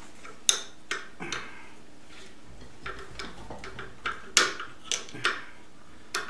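Sharp metal clicks and knocks, about eight in all, from the head of a Bridgeport milling machine as the drawbar is worked loose to release the arbor carrying the gear cutter. The loudest knocks come about half a second in and about four and a half seconds in.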